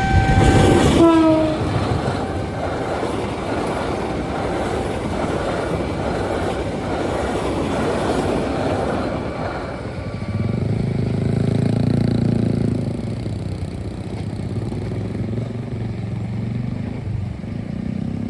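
A train passing through a level crossing: a steady loud rush of wheels on the rails, with a heavier low rumble from about ten seconds in. At the very start the crossing's electronic warning alarm gives a few stepped tones, then is drowned out by a sudden loud burst of train noise.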